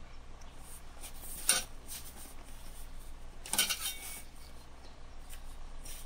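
Two brief clattering knocks about two seconds apart, the second a short rattle, as hard gardening gear is handled while repotting, over a low steady hum.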